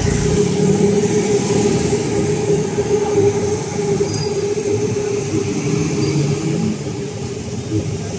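Pedestrian crossing signal sounding a steady mid-pitched tone, with road traffic running underneath it.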